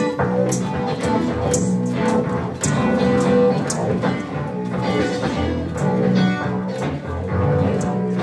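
Instrumental music without vocals: plucked guitar over a steady pulse of sharp high ticks about twice a second.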